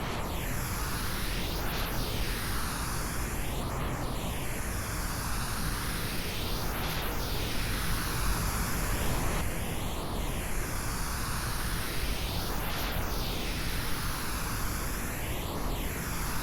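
Steady pink noise processed as '8D audio', panned so that it seems to circle around the listener's head. A hollow, sweeping shift in tone comes round about every three seconds.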